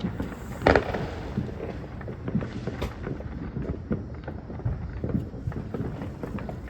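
Fireworks going off: many scattered pops and bangs, with a louder bang a little under a second in.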